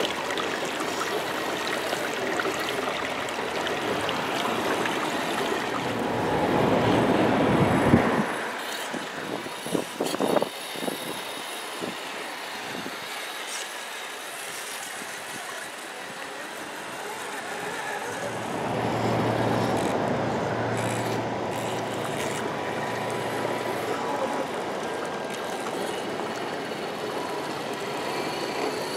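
Scale RC crawler trucks driving through a shallow meltwater stream and over wet mud: running water and tyres churning, a few sharp knocks about ten seconds in, and a faint steady whine from the trucks' electric motors.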